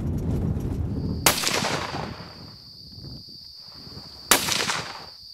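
.375-calibre gun fired twice, about three seconds apart, each sharp report trailing off in a short echo. A steady high insect chirr runs underneath.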